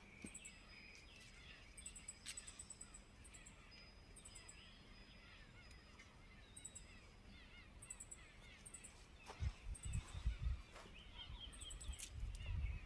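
Faint outdoor ambience of distant bird calls, short chirps, with groups of quick high-pitched ticking repeating throughout. Wind buffets the microphone in low rumbling gusts about two-thirds of the way in and again near the end.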